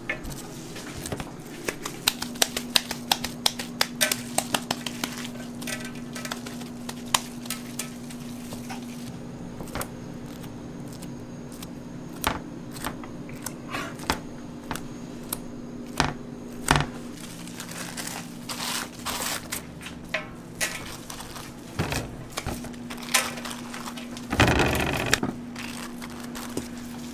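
Gloved hands handling and patting raw ground-beef burger patties on a paper-lined tray: crinkling of the paper and small sharp clicks and taps, over a steady low hum. There is a louder rustle, about a second long, near the end.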